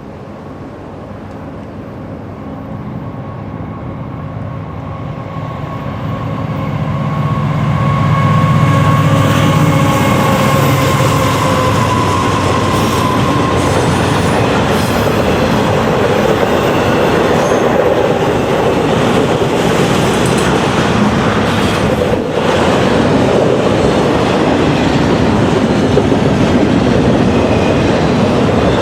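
Diesel freight locomotives approach, their engines growing steadily louder over the first eight seconds. Then a long train of freight cars rolls past with steady wheel-on-rail noise and clicks at the rail joints.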